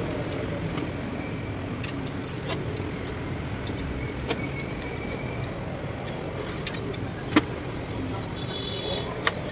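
Scattered metal clinks and taps as turbocharger parts and a wrench are handled on a steel workbench, with one sharper clink about three-quarters through, over a steady low background rumble.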